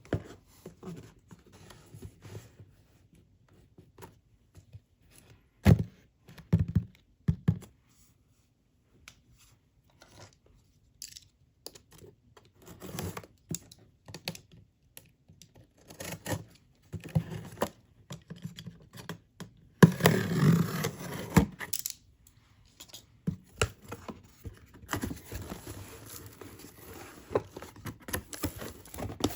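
Packaging being handled during an unboxing: scattered taps and thunks of a box and its contents being handled and set down, with stretches of rustling and tearing of the wrapping about two-thirds of the way in and near the end.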